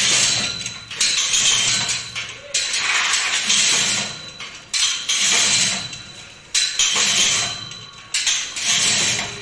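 Manual chain hoist being worked by hand, its steel chain rattling and clinking in repeated pulls, a fresh burst about every second to second and a half, to lift an escalator truss.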